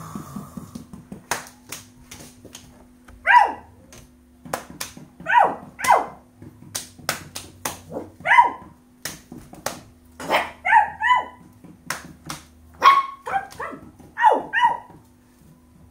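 A woman imitating a dog's barking, about a dozen short, high barks that drop in pitch, some single and some in quick twos and threes, meant to coax a puppy into barking. Sharp slaps of hands on the floor come between them.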